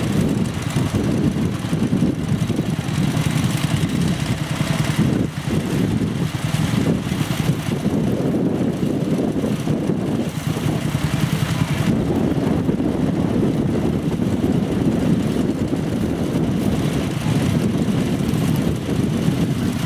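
Engine of a two-wheel walking tractor (motoculteur) running steadily with a fast, even beat.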